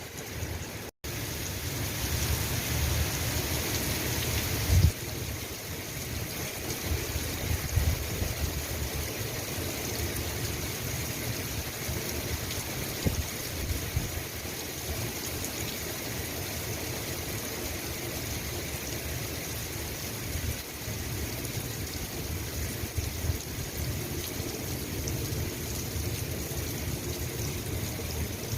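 Steady rain falling, with a low rumble underneath. A louder, hissier stretch ends abruptly with a thump a little under five seconds in, and the rain then stays steady.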